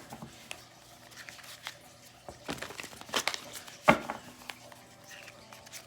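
Tarot cards being shuffled and handled: scattered rustles and light clicks, with one sharper snap about four seconds in.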